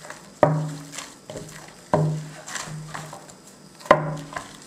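Soft yeast dough kneaded by hand and slapped down into a plastic mixing bowl three times, about a second and a half apart, each a thump followed by a short ring from the bowl, with soft sticky squishing between.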